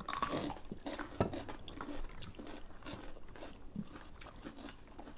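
Crisp bites and chewing of fresh raw cucumber: a run of sharp crunches in the first two seconds, the loudest about a second in, then quieter chewing.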